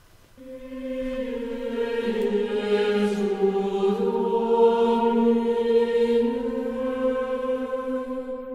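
Background music of slow, sustained choral chanting: long held vocal notes that change pitch only slowly, fading in about half a second in.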